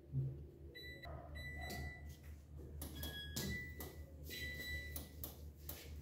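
Midea front-load washing machine control panel beeping as the program dial is turned and settings are chosen: a string of short electronic beeps at a few different pitches, with light clicks, over a steady low hum.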